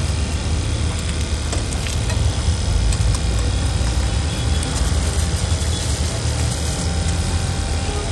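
A steady low engine-like rumble runs throughout, with faint scrapes and clicks of a steel ladle spreading egg across a hot iron griddle.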